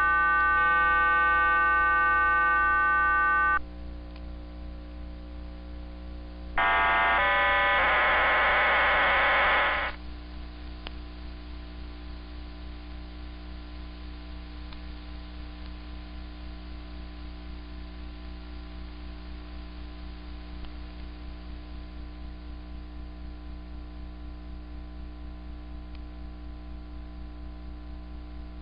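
Shortwave numbers station on 13435 kHz received in AM: a steady tone made of several pitches held together cuts off after about three and a half seconds. A second loud burst of tones sounds from about seven to ten seconds in. After that only the station's carrier remains, a low steady hum with a slight regular flutter.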